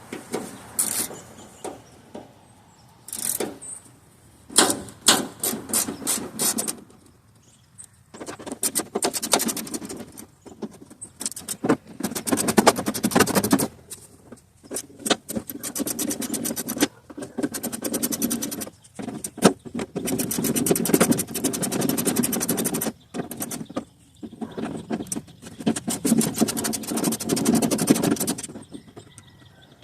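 Hand ratchet wrench clicking in quick runs as small bolts are backed out, the runs broken by short pauses.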